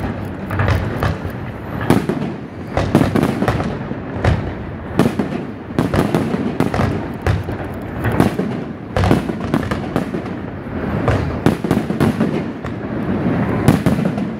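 Aerial fireworks display: shells bursting overhead one after another, a dense run of sharp bangs in quick, irregular succession.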